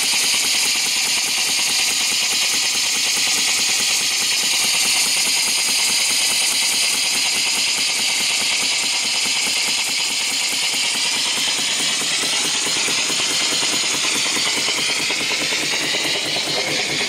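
Small single-cylinder vertical steam engine running under steam, its exhaust blowing out in a steady loud hiss with a fast, even chuffing beat.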